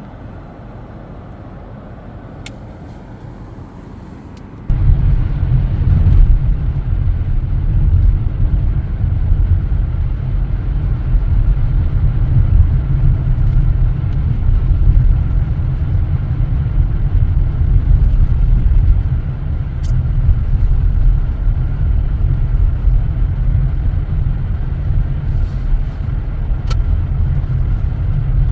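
Car driving, heard from inside: a steady low road rumble that gets much louder about five seconds in and stays loud.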